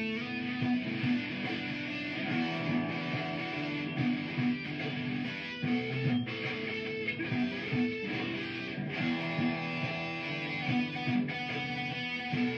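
Electric guitar improvising a solo over a repeating looped guitar part.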